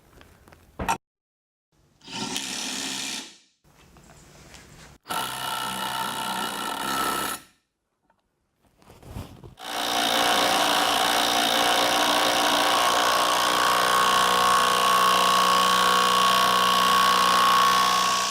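Bosch GDS cordless impact wrench running in two short runs of a second or two, then one long steady run of about eight seconds that stops near the end. There is a click about a second in.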